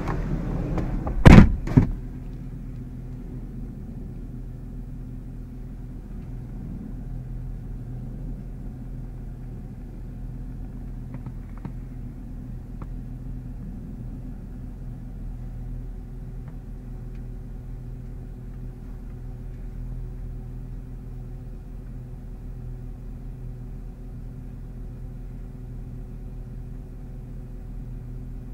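Audi S5's driver door pulled shut with a heavy thud about a second in, followed by a lighter knock. Its engine, fitted with an AWE Tuning exhaust, then idles steadily, heard from inside the closed cabin.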